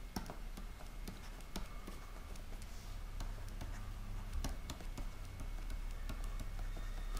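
Stylus on a tablet screen while handwriting: faint, irregular taps and scratches over a low steady hum.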